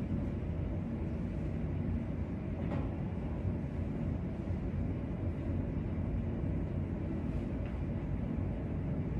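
Steady low rumbling room noise with no voices.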